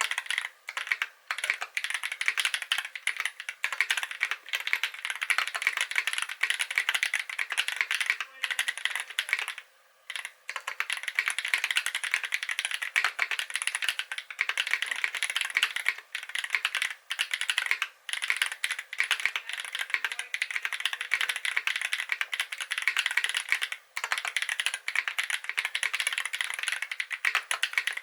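Fast, continuous typing on a KBD8x MKII custom mechanical keyboard with lubed Holy Panda tactile switches, brass plate and polycarbonate top, giving a dense clatter of key strokes broken by a few short pauses.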